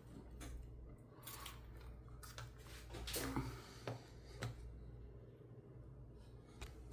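Faint, scattered metallic clicks and taps as a small pin-tumbler lock cylinder is taken apart by hand, about half a dozen separate clicks over a steady low hum.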